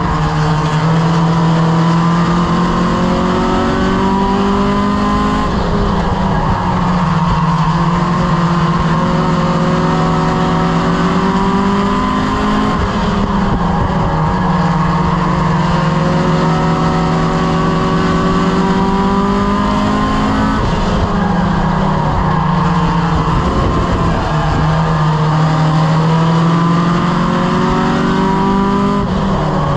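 A Strictly Stock Mini race car's four-cylinder engine, heard from inside the cockpit at racing speed. The engine climbs in revs along each straight and drops back for each turn, a rising-then-falling cycle that repeats about every seven to eight seconds with each lap of the short oval.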